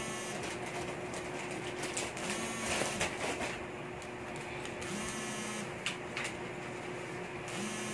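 Small clicks and scraping of plastic phone parts as a replacement battery is fitted into an Oppo A5S's frame and the phone is handled, over a faint steady hum.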